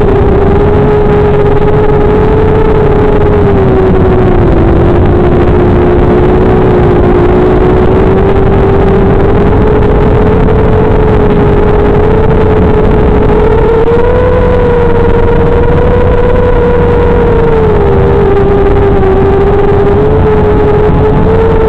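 FPV quadcopter's electric motors and propellers whining steadily in flight. The pitch drops right at the start, sags again around four seconds in, rises about fourteen seconds in, dips near eighteen seconds and climbs again near the end as the throttle changes.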